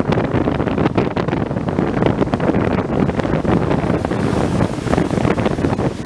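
Wind buffeting the microphone in a steady low rumble, over the rush of heavy surf breaking on the beach.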